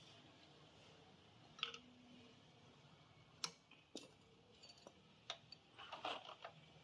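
A handful of light, sharp clicks and taps of small hard objects being handled, spread out over about six seconds against a faint room hum.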